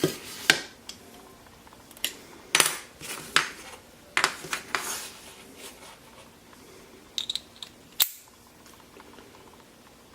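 Small steel screwdriver bits clinking and clicking as they are handled and set down, about nine separate light metallic clinks, some with a short ring, the last one about eight seconds in.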